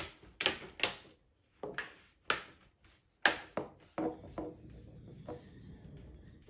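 Sharp plastic clicks and knocks from laptop parts being handled, about ten of them at irregular intervals over the first four seconds, then only a faint steady hiss.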